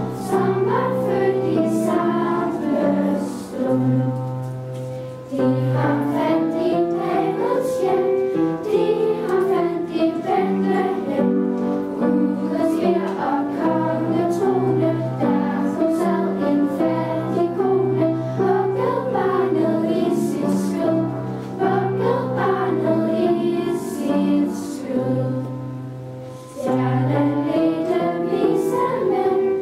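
A choir of girls singing, with short pauses between phrases about five seconds in and again near the end.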